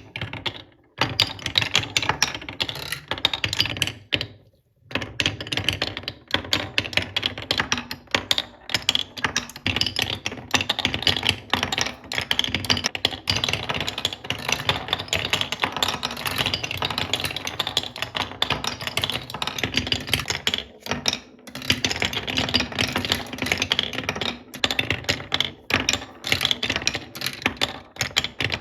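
Marbles rolling and clacking down a HABA wooden marble run in a dense, continuous clatter of small clicks. There are brief lulls about a second in, around four and a half seconds, and around twenty-one seconds.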